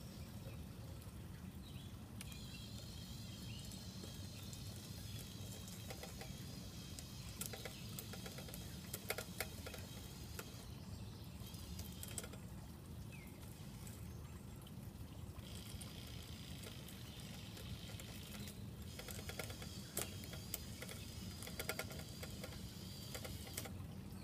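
Faint whir of a radio-controlled crawler crane's small electric motors and gears as it swings and tracks, with two bursts of quick clicking and patter, about a third of the way in and again near the end.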